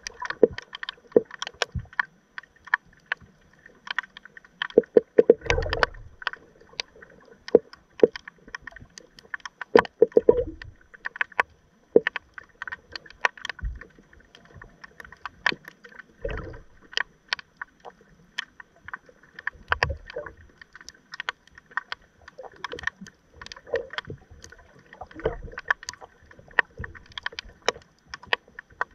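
Underwater sound through a submerged camera in moving seawater: irregular sharp clicks and knocks, with a few heavier low thumps every few seconds, over a faint steady high whine.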